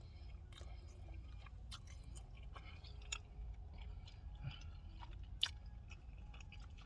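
A person chewing a mouthful of beef and cheese quesadilla, faint, with scattered small clicks of the mouth.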